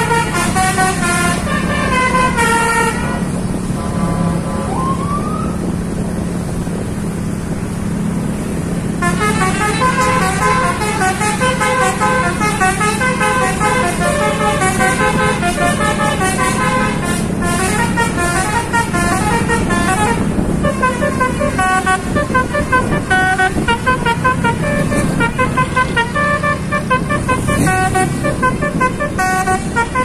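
A bus's basuri telolet horn, a roof-mounted multi-trumpet musical air horn, playing a fast tune of short stepped notes. It stops for several seconds about three seconds in, leaving the bus engine's steady drone, then plays again for the rest of the time.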